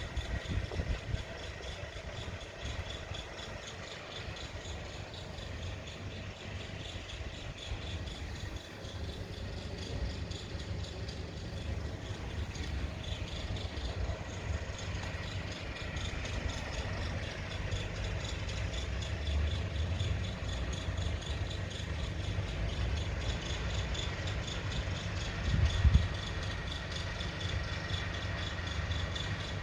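A cafe's ventilation system running: a steady mechanical hum with high steady tones and a rattling creak, and a brief louder low rumble about 26 seconds in.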